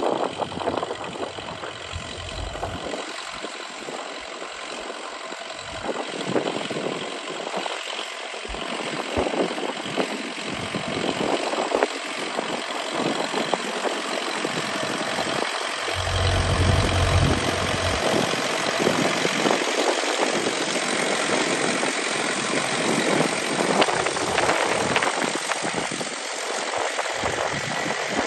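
International B275 tractor's four-cylinder diesel engine running steadily, growing gradually louder.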